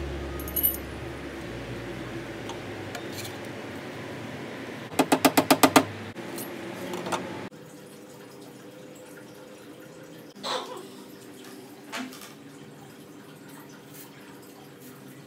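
A rapid run of about seven sharp knocks in under a second, the loudest sound. Then short hisses of aerosol spray grease being sprayed onto a bicycle fork's steerer and crown race.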